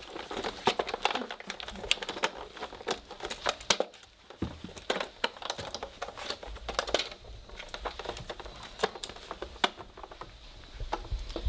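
Three-week-old Weimaraner puppies scrambling and wrestling on bedding: an irregular run of rustling, scratching and little ticks from paws, claws and bodies on the blanket and toys.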